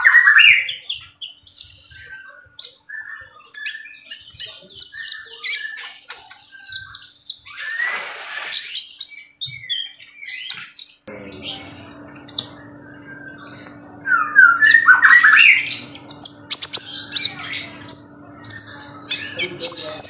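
Caged sunbird singing: rapid high-pitched twittering chirps and trills in quick phrases throughout. A steady low hum comes in about halfway through.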